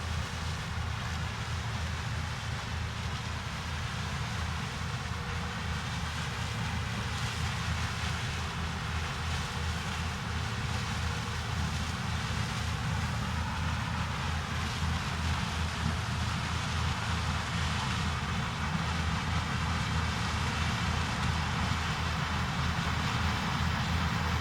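Diesel farm harvest machinery running steadily, a low engine drone under a rushing mechanical noise, slowly growing louder.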